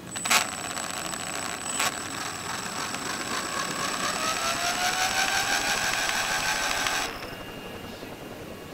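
Model helicopter's motor driving the white plastic main gear: a click, then a gear whine that rises in pitch over a couple of seconds, runs steady and cuts off suddenly near the end. It is a noise the owner suspects comes from the motor or the main gear.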